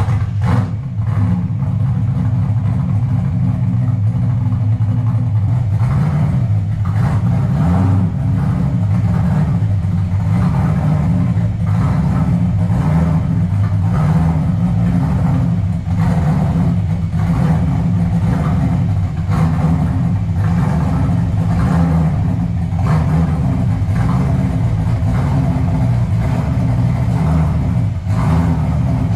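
Fox-body Mustang's engine running at a low, loud idle as the car creeps into the garage, its low note wavering up and down in pitch.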